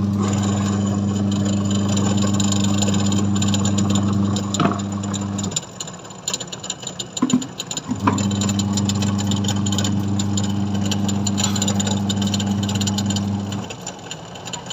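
Sharp twin-tub washing machine's electric motor humming as it drives the tub through its new poly V-belt. It runs about five seconds, stops for a couple of seconds, then runs again, in the on-off rhythm of the wash cycle, with light rattling over the hum.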